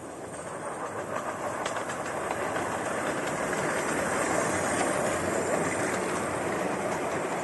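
Miniature steam train running past close by, its carriages rolling over the rails with clicks from the wheels on the track joints. The noise builds from about a second in as it draws level, then stays loud as the carriages go by.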